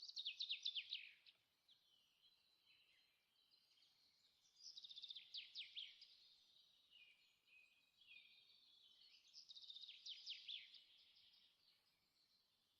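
Faint songbird song: three bouts of quick, high chirping trills, each a second or two long, about four to five seconds apart.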